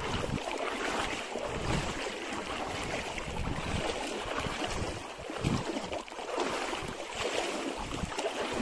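Water sloshing, with wind buffeting the microphone in uneven low gusts.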